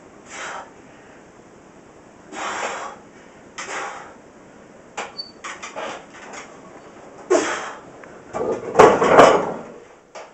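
Short forceful breaths during incline bench press reps, then a barbell loaded with 45 lb iron plates clanks twice into the rack's hooks near the end, the loudest sounds here.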